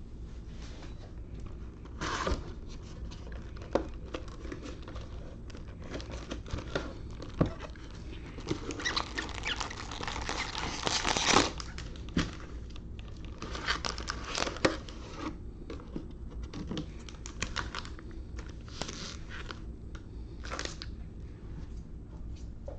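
Plastic wrapping on a trading-card box and packs being handled: crinkling and tearing in irregular bursts, the longest about nine to eleven seconds in, with scattered small clicks and taps.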